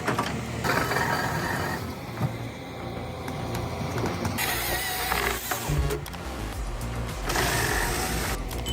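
Heavy forestry machinery running, its engine and mechanical noise changing abruptly several times as the footage cuts from shot to shot, under background music.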